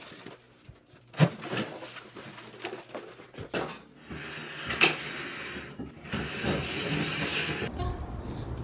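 Knocks and clatter of books being set onto a wooden bookshelf and a desk being handled, followed by a few seconds of shuffling, scraping noise.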